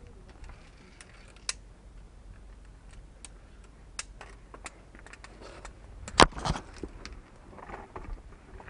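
Scattered light clicks and taps of via ferrata climbing gear against the steel cable and rock during a descent, with one sharp, louder knock about six seconds in.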